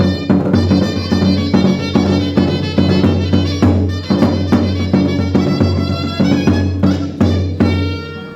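A band playing a lively tune with a steady drum beat and a strong bass line, about three drum hits a second; the music stops on a final note near the end.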